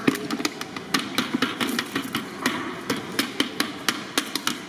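Rapid, irregular sharp knocks and clatter, several a second, over a low steady background noise.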